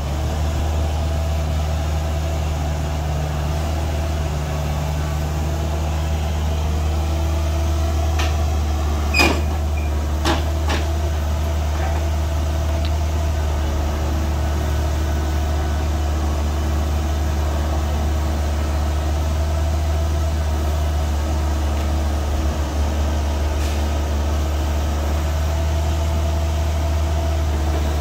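Kubota U55-4 mini excavator's diesel engine running steadily with a deep hum while the boom and bucket are worked. Two sharp clicks about nine and ten seconds in.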